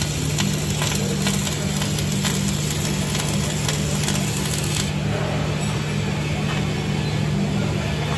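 Electric arc welding on steel: the arc crackles and sputters over a steady low hum from the welding machine. The arc stops about five seconds in, while the hum carries on.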